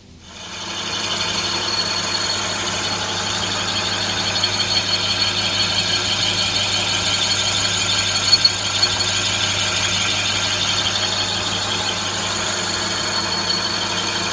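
Metal lathe boring out the inside of a spinning workpiece: a steady, high-pitched squeal from the cutting tool over the machine's low hum, starting about half a second in.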